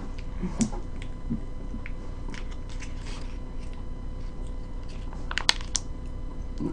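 Small clicks and rustles of a mayonnaise sauce packet being torn open and squeezed out over a sandwich in its paper wrapper, with a few sharper clicks about five and a half seconds in.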